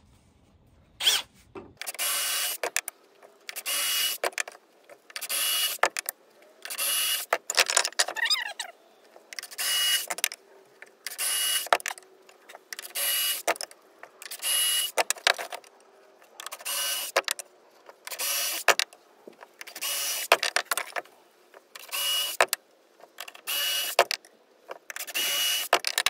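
Cordless drill (red Milwaukee) boring pocket holes in pine boards through a pocket-hole jig: a long run of short drilling bursts, one every second or two, with short pauses between as the bit is moved to the next hole.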